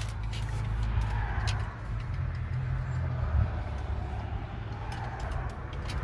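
Steady low rumble of a vehicle heard from inside its cabin, with a few faint clicks and rustles from a small plastic toy and its bag being handled.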